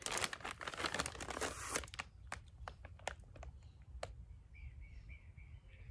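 Plastic snack bag crinkling as a piece of dried fish is taken out of it, for about the first two seconds. Then come only a few faint clicks.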